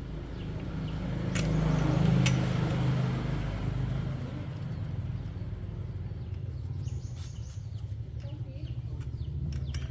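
Small motorcycle engine running with a steady pulsing rumble, swelling louder for a couple of seconds about a second in before settling back. Two sharp clicks sound during the swell.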